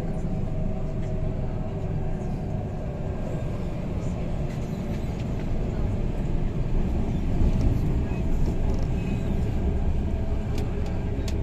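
Moving metro train heard from inside the carriage: a steady low rumble of wheels and running gear, growing a little louder in the second half, with a couple of sharp clicks near the end.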